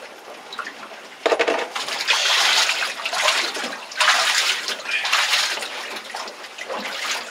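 Seawater sloshing and splashing as a freshly killed, bleeding yellowtail is swished back and forth by hand in a cooler well of bloody water to bleed it out. The sloshing starts abruptly about a second in and comes in repeated surges.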